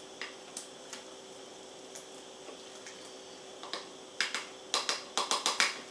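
A ladle knocking against the dishes as soup is ladled into a bowl: a few light clicks, then a quick run of about eight sharp taps in the last second and a half.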